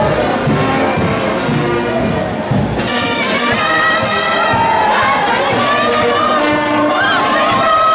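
Large crowd cheering; about three seconds in, a brass band starts playing loudly over the cheers with sustained brass chords.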